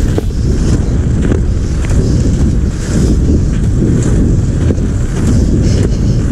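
Heavy wind rumble on the microphone of a camera carried along at skiing speed, with a few short clicks and scrapes of skis and poles on a groomed cross-country ski track.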